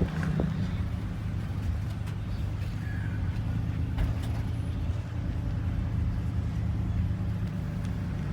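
A car running with a steady low drone of engine and road noise, with a few faint ticks.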